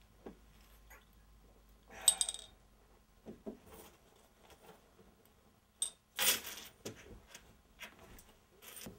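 Light clinks and knocks of a glass bottle on a bar counter: a ringing clink about two seconds in, two soft knocks a little later, and a louder scuffing noise of movement just after six seconds.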